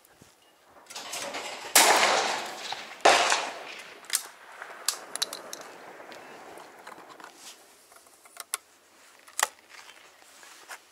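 Webley & Scott 2020K side-by-side shotgun fired twice, one barrel then the other, about a second and a half apart. Then a series of light metallic clicks and clunks as the gun is broken open and reloaded.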